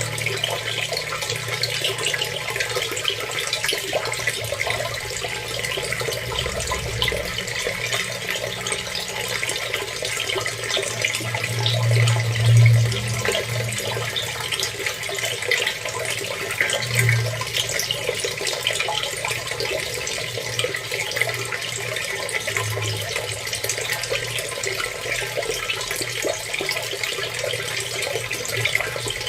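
Water running and splashing steadily, a dense stream of small splashes over a low rumble that swells briefly about twelve seconds in.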